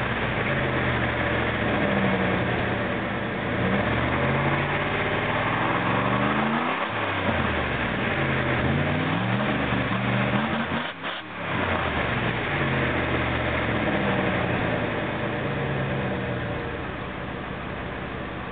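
1994 Jeep Grand Cherokee's 5.2-litre (318) V8 on its stock exhaust and muffler, revved up and let fall back several times, the pitch rising and dropping repeatedly, with a brief dip about eleven seconds in.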